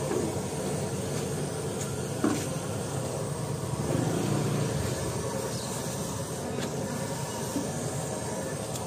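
Traditional market ambience: a steady low rumble of passing vehicles and general bustle, with no clear voices and a few short clicks or knocks, about two seconds in and near six and a half seconds.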